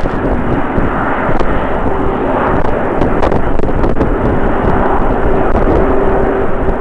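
Jet airliner engines running, a steady loud rushing noise with a faint held tone through the middle, mixed with strong wind rumbling on the microphone.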